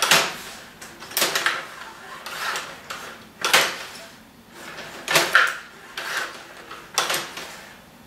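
Rod table hockey game in play: sharp plastic clacks and knocks as the players' rods are pushed and twisted, the figures strike the puck and the puck hits the boards, about one knock a second.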